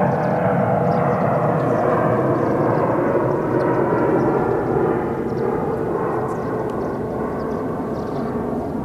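Twin-engine jet airliner flying overhead: a steady rushing jet-engine noise that slowly fades.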